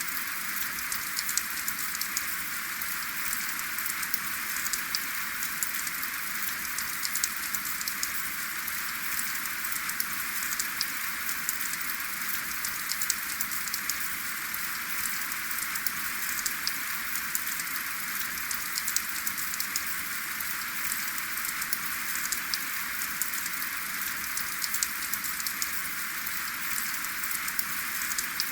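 Steady rainfall with no thunder: a constant hiss of rain with many individual drops ticking sharply on top.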